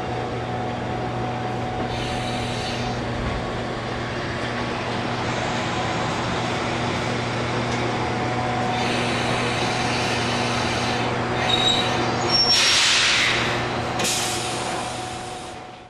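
Electric commuter train standing at the terminal platform, its on-board equipment humming steadily. About twelve and a half seconds in comes a burst of hissing air, and the sound fades out at the end.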